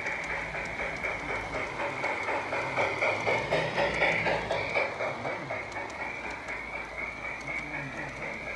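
Large-scale garden-railway model train rolling past on outdoor track, its wheels clicking steadily over the rail joints, loudest about three to five seconds in as the cars pass close. A steady high-pitched drone runs underneath.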